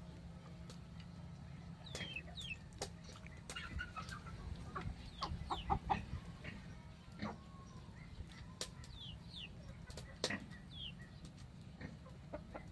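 Chickens clucking, with short high peeps that fall in pitch coming in small clusters, over scattered sharp clicks and a steady low hum.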